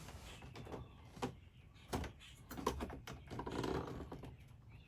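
Scattered light clicks and knocks of the RV power converter's parts being handled and pushed into place, with a soft rustle near the end.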